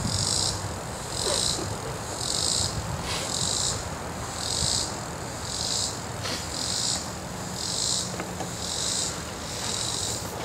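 Insects calling outdoors, a high-pitched buzzing trill that pulses on and off about once a second in a steady rhythm.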